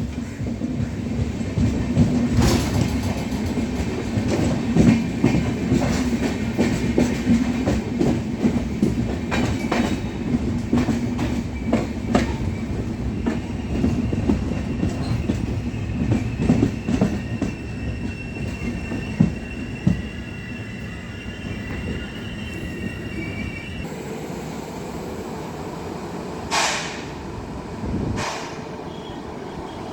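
Indian Railways train running on the track, its wheels clattering over rail joints with a thin wheel squeal partway through. The clatter eases after about twenty seconds, and two short hissing bursts come near the end.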